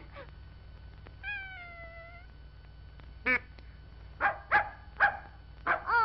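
Cartoon animal calls: one drawn-out call sliding down in pitch about a second in, then a run of short calls in the second half.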